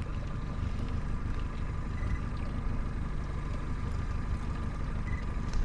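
Steady low rumble with a faint constant hum, the background noise of a small fishing boat on the water.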